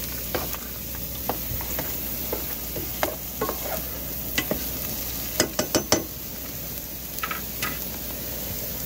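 Food sizzling in a pan over a camp stove, with a utensil stirring and scraping against the pan in short, irregular clicks, a quick cluster of them about five and a half seconds in.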